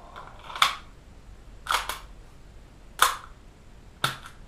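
Tokyo Marui USP Compact airsoft pistol being worked by hand, its slide and action giving four sharp clacks about a second apart.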